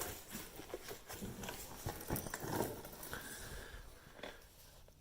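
Faint scattered knocks, scuffs and rustling: handling and movement noise, thinning out near the end.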